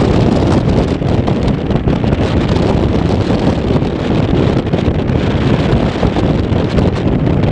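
Wind buffeting the microphone: a loud, steady low noise without any clear tone or distinct knocks.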